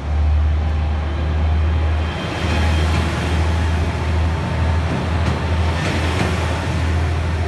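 A single-car railcar running past: a steady low drone, with the noise of wheels on rail building up from about two seconds in and a few short knocks near the end.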